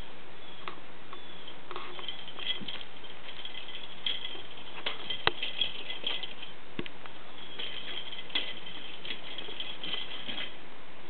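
Cat's spring toy, a ball on a wire spring, rattling and clicking as a kitten bats and wrestles it, with a high ringing that comes and goes and a sharp knock about five seconds in.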